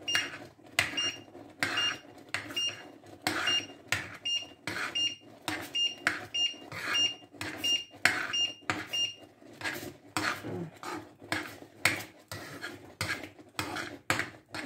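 A spoon stirring thick semolina porridge in a pan, knocking and scraping against the pan about twice a second. For roughly the first nine seconds each stroke comes with a short high-pitched beep-like tone; after that the strokes go on without it.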